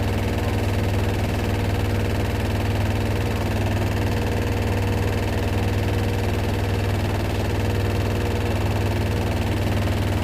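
Bosch Serie 4 washing machine in its final high-speed spin, the drum running steadily with a very loud, helicopter-like low hum and vibration.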